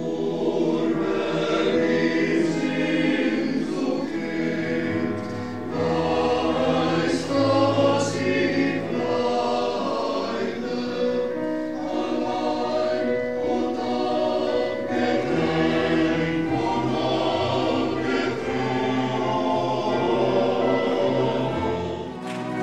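Large mixed choir of women's and men's voices singing a piece together in harmony.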